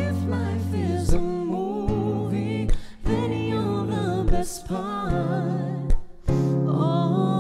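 Live duo music: a woman singing with vibrato, joined by a man's voice, over a strummed acoustic guitar with sustained low notes. The singing comes in phrases, with brief breaks about a second in, near three seconds and about six seconds in.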